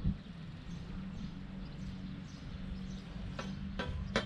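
Three sharp metallic clicks near the end, the second with a brief ring, as metal fence fittings on the chain link top rail are handled and knocked. A low bump comes at the start, and a steady low hum and faint bird chirps run underneath.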